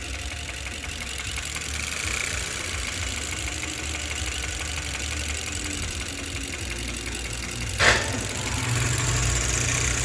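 2018 Chevrolet Cruze's 1.4-litre turbo four-cylinder idling steadily with cylinder 1 dead: its injector is bad and never fires, so the engine is misfiring. A single sharp click about eight seconds in.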